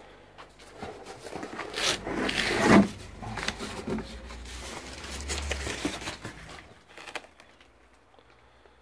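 Cardboard box and packaging being handled, rubbing and scraping with a few sharp knocks. It is loudest about three seconds in and dies away about seven seconds in.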